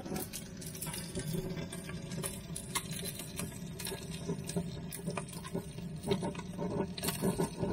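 Fire crackling inside a closed barbecue grill, with irregular sharp pops and snaps over a steady low hum.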